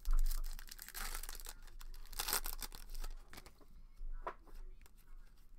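Hands tearing open a foil trading-card pack wrapper, with ripping and crinkling of the foil, after a low thump at the start.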